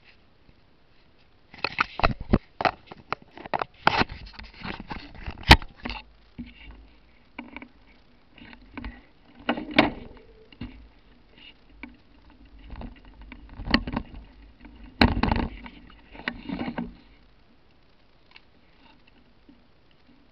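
Handling noise on a small handheld camcorder: fingers rubbing, tapping and knocking against the camera body close to its microphone, making irregular clicks and scrapes that stop after about seventeen seconds.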